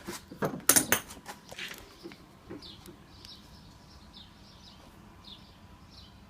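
A quick run of clicks and light clatter in the first two seconds, then a quiet stretch with faint bird chirps about twice a second. There is no hiss of escaping air: the freshly filled air tank is holding without a leak.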